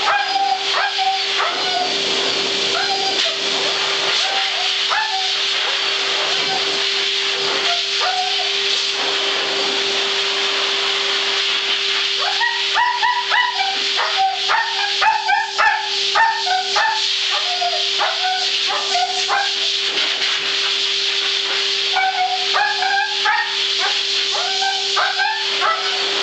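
A husky howling and 'talking' in short, broken calls that rise and fall in pitch, sparse at first and then in dense runs through the middle and near the end. Under it a pet grooming blow dryer runs with a steady hum and a high rushing hiss.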